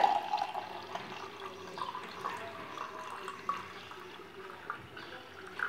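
Lemon, mint and ginger juice pouring in a steady stream into a glass, splashing as the glass fills.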